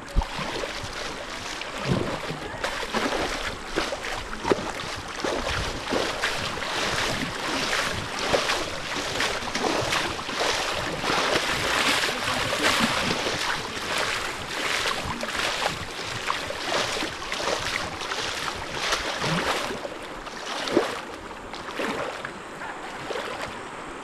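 River water rushing and splashing close to the microphone as an inner tube rides the current, with constant crackling spatter. It is loudest midway and eases a little near the end.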